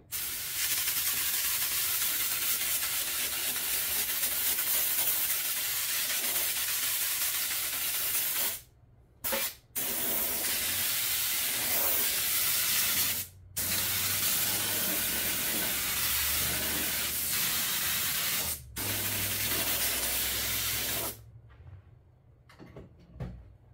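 Spray adhesive hissing out of a spray nozzle onto upholstery foam in five bursts: long sprays of several seconds with brief stops between them, one of them very short, ending a couple of seconds before the end.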